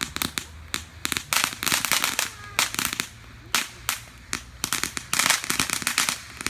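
Firecrackers going off in rapid crackling runs of sharp pops: one dense run about a second in and another from about two-thirds of the way through. Scattered single pops fall between them.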